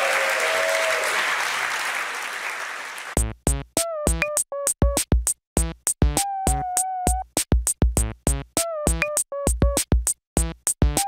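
Audience applauding, fading away over about three seconds. Then electronic music starts abruptly: a choppy drum-machine beat with a synthesizer melody.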